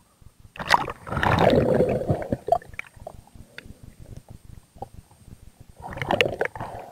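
Water splashing and gurgling around an action camera as it dips from the surface under water. A loud bubbling rush comes about a second in, with another shorter one near the end and faint scattered clicks between.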